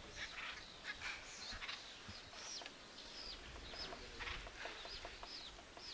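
Acorn woodpeckers calling: a run of short, high calls, each falling in pitch, about two a second, mixed with harsher chatter, as from several birds.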